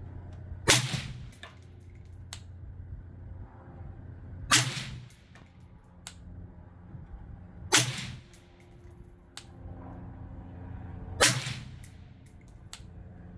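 Four suppressed 5.56 rifle shots, fired slowly about three and a half seconds apart through a B&T VERS36 titanium suppressor, each a sharp crack with a short ring-out, followed by light clicks.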